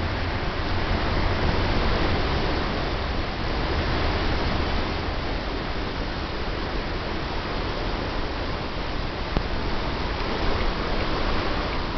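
Shallow stream running over stones: a steady rushing, with a low rumble underneath.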